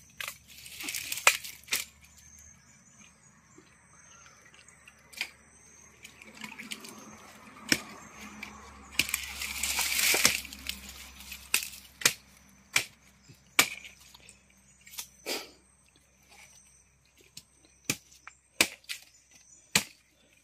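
Scattered sharp clicks and crackles at irregular intervals, with two short bursts of rustling, one about a second in and a longer one around the middle, over a faint steady high-pitched whine.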